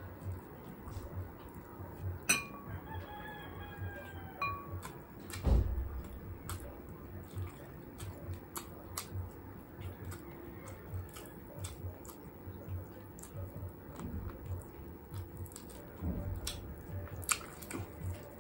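A rooster crows once in the background, a single call lasting about two seconds and starting about two seconds in, over close-up chewing of roast chicken with small mouth clicks and soft thuds. There is one louder thump about five seconds in.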